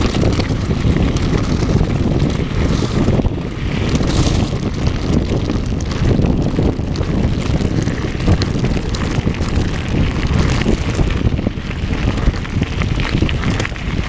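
Mountain bike descending a loose gravel track at speed: heavy wind noise on the bike-mounted camera's microphone, with the tyres crunching over stones and a constant clatter of small knocks from the bike.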